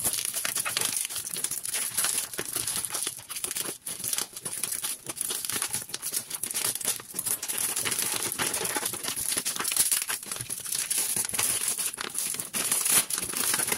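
Plastic packaging crinkling and rustling without a break as a wrapped package is handled and cut open with scissors, with some tearing.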